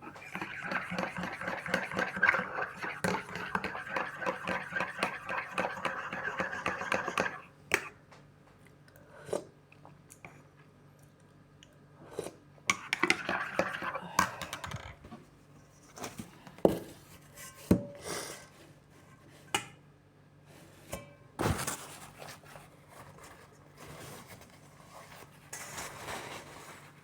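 Dishes and cutlery clinking and scraping, with scattered sharp knocks. A dense, continuous stretch of noise fills about the first seven seconds.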